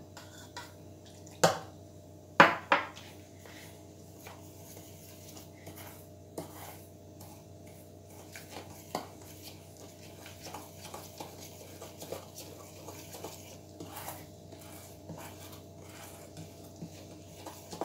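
Steel spoon clinking and scraping against a steel saucepan as milk is stirred into milk powder. A few sharp clinks come in the first three seconds, then soft irregular scraping and ticking.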